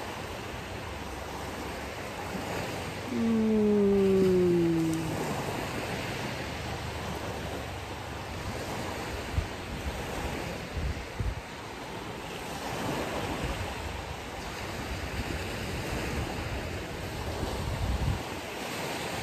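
Ocean surf washing steadily on the shore, swelling and easing, with some wind. About three seconds in, a brief pitched sound falls in pitch, like a person's voice.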